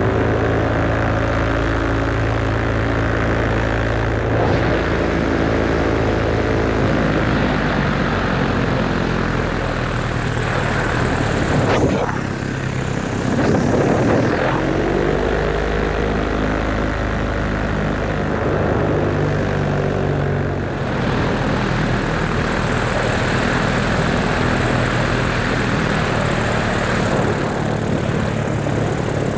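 Moster 185 paramotor's single-cylinder two-stroke engine and propeller running steadily under power. Its pitch dips and climbs again about twelve to fourteen seconds in as the throttle is worked, and shifts once more a little after twenty seconds.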